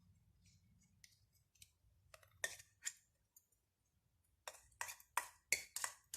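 A utensil stirring yeast into warm milk in a bowl, clinking against the side: a few scattered clicks, then from about two-thirds of the way in a steady run of about three clinks a second.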